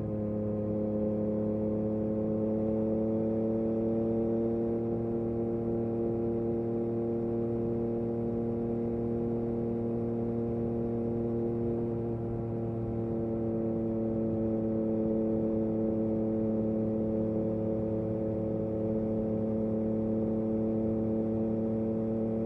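Yamaha MT-09 SP's inline three-cylinder engine through an Akrapovic exhaust, held at steady revs under constant throttle. Its steady hum rises slightly in pitch over the first few seconds and then holds.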